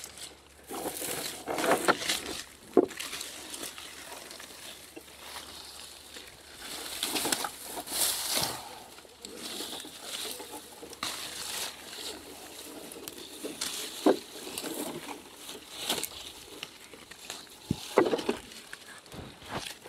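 Aronia bushes rustling and crackling in irregular bursts as berry clusters are picked by hand, with a few sharp clicks among the leaves and stems.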